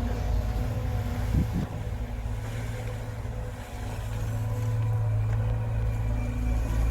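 Heavy diesel engine of earthmoving machinery running with a steady low drone, its note swelling from about four seconds in.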